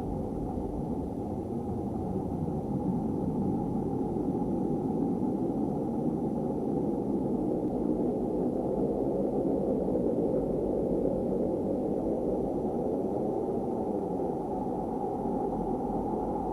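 Space ambience presented as the sound of Saturn: a steady deep rushing drone with faint, slow rising and falling whooshes running through it.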